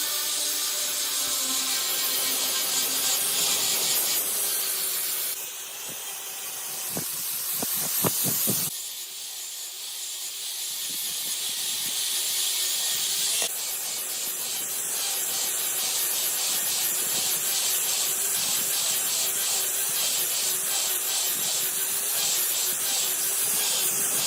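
Steady hiss of a compressed-air tool, cutting off and starting again abruptly several times, with a faint hum underneath and a few knocks about seven to eight seconds in.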